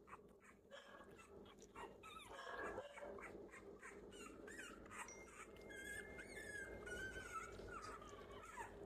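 Newborn American Bully puppies whimpering and squeaking faintly, thin wavering high-pitched cries that come more steadily in the second half.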